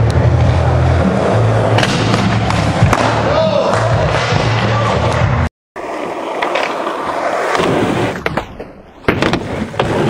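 Skateboard wheels rolling loudly with a low hum. After a brief dropout they roll on concrete. Near the end the rolling fades as the board goes airborne for a kickflip, and a few sharp clacks follow as the board and skater land.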